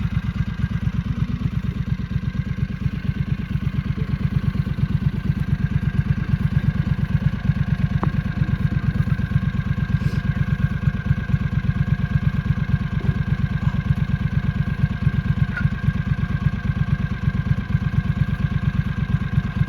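Utility vehicle's engine idling steadily, a fast, even low pulse that does not change.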